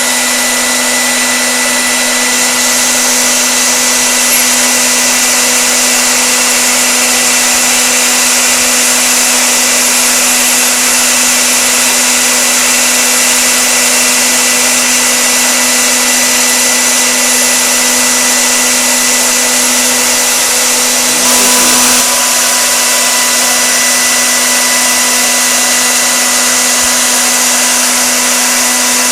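Spindle of a stone-cutting CNC router running with a steady whine over a bright hiss, with a brief change in tone a little over two-thirds of the way through.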